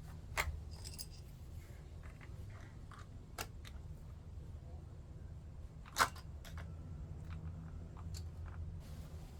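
Scattered small clicks and taps of hand tools and plastic parts being handled on a chainsaw during carburetor removal, the sharpest about half a second in and at six seconds, over a steady low hum.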